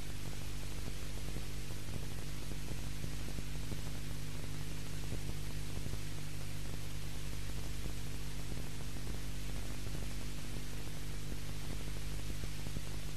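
Steady hiss with a low electrical hum and nothing else: the noise floor of an old tape transfer, with no soundtrack audible.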